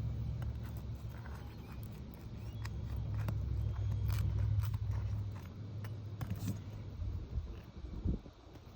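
Light clicks and scrapes of a brittle asphalt shingle being handled and pressed down, over a low rumble that fades about five and a half seconds in.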